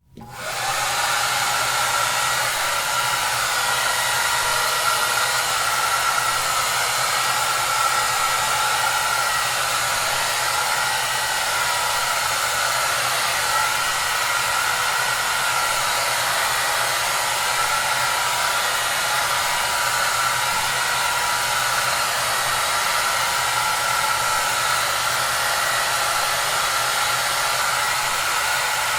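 Hair dryer running steadily: an even rush of air with a faint high whine. It comes on at the very start, rising to full level within about a second.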